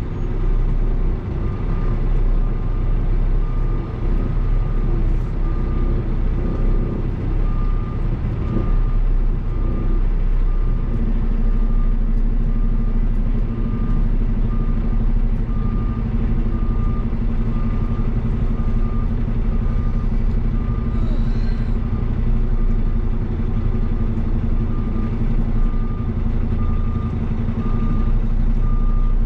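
Kenworth T880 dump truck's diesel engine running, heard from inside the cab as a steady low rumble. Over it a high beep repeats at an even pace, like a backup alarm. About a third of the way in, a steady lower hum joins the rumble.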